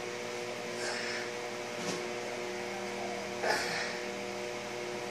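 A steady electrical or mechanical hum with several held tones, with a brief noise about a second in, a single click about two seconds in, and another short noise past the middle.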